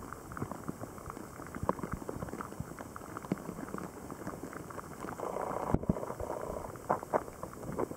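Water heard through a camera housing sitting at the surface of a shallow puddle: irregular small clicks and bubbly pops, growing busier for about a second past the middle.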